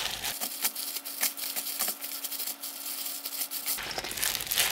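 Gloved hands tossing seasoned spring cabbage and wild chive leaves in a bowl: plastic gloves crinkling and wet leaves rustling and squelching in a quick, irregular run of soft crackles.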